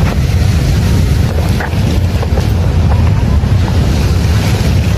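Wind buffeting the microphone in a steady low rumble, over the wash of ocean surf on the beach.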